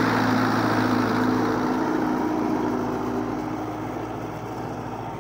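Fiat 640 tractor's four-cylinder diesel engine running steadily under load while pulling a tillage cultivator through soil, fading as the tractor moves away.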